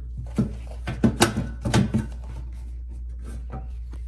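Knocks and clatter of a floor vent cover being handled and fitted into its opening in the floor: several sharp knocks in the first two seconds, then a few faint ticks, over a steady low hum.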